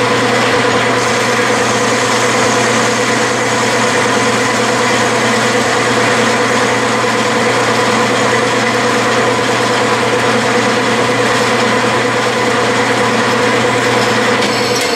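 Clausing metal lathe running steadily with a hum and whine while a cutoff tool plunge-cuts a groove into the spinning steel shaft. The motor hum stops just before the end as the lathe is switched off.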